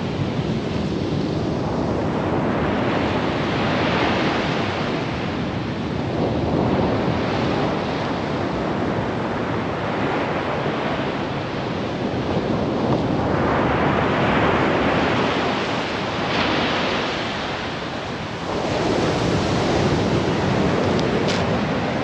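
Sea waves breaking and washing up a beach, the surf swelling and fading every few seconds.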